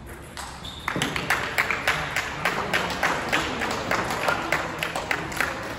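Scattered hand clapping from a few people, starting about a second in: a quick, irregular run of sharp claps.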